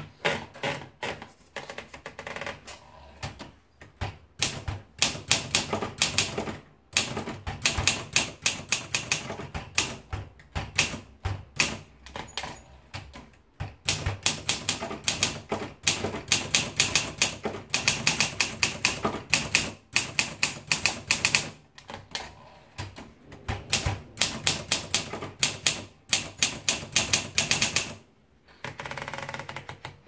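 Olympia manual portable typewriter being typed on: fast runs of sharp clacking keystrokes broken by a few short pauses, with a short mechanical rattle near the end.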